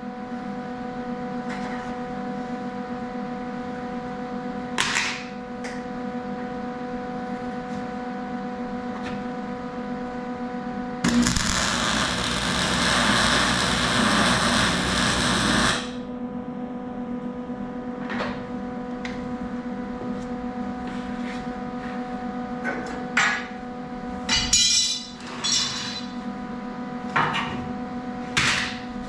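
Metalwork on a steel BBQ smoker: several sharp hammer-like knocks on metal, single and in short clusters, over a steady humming tone from a running machine. About eleven seconds in comes a loud hissing burst lasting about five seconds, then it cuts off.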